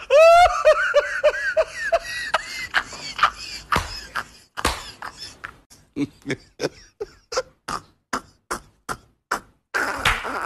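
A person's voice: a high wavering cry that breaks into a string of short repeated notes falling in pitch, then a run of short clipped vocal sounds about three a second.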